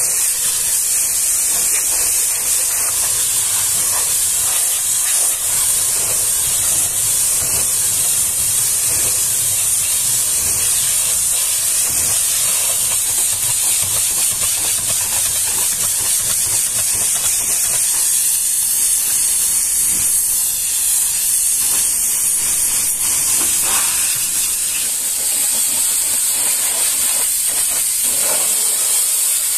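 High-pressure washer jet spraying water in a steady, loud hiss as it blasts oily grime off the steel underside, chassis and wheels of a fuel-oil tanker truck.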